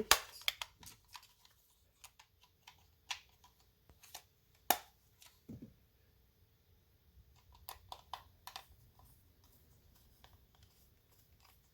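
Scattered small plastic clicks and taps as AA batteries are fitted into a toy RC car's remote control and its battery cover is handled. There is one sharper click about five seconds in and a run of small clicks near the end.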